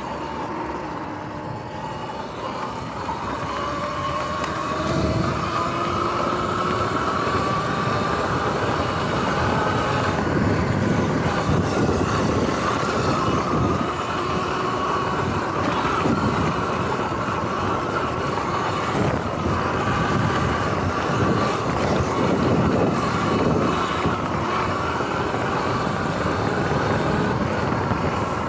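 Sur-Ron X electric dirt bike's motor whining, rising in pitch as it picks up speed in the first few seconds, then wavering up and down with the throttle. Rushing wind and rough tyre noise run underneath as it rides over grass.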